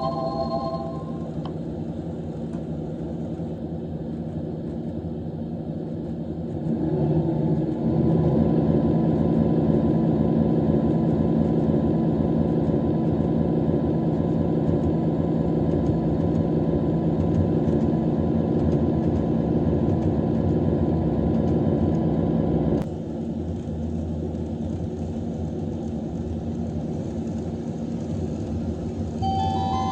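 Recorded KiHa 85 series diesel railcar Cummins engine sound played back by a model-railway sound card. It runs steadily, steps up louder about seven seconds in as if notched up for acceleration, then drops back suddenly to the lower level about 23 seconds in. The last notes of a chime die away in the first second.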